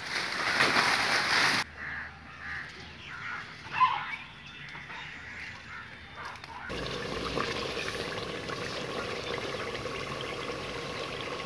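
Leaves and branches of a kachnar tree rustling close by for the first second and a half, then quieter handling sounds with one short sharp sound near four seconds. From about seven seconds on, a beef curry cooking in a pot makes a steady bubbling sizzle.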